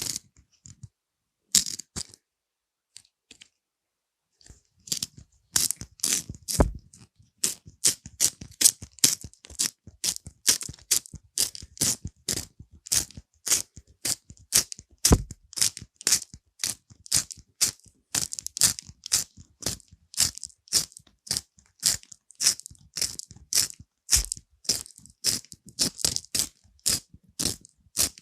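Pencil writing on paper in short strokes, about two a second, after a pause of a couple of seconds near the start.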